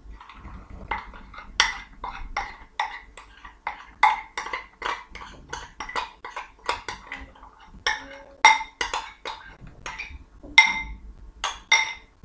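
A spoon tapping and scraping inside a ceramic bowl to empty out yogurt: a quick run of sharp, ringing clicks, about three a second.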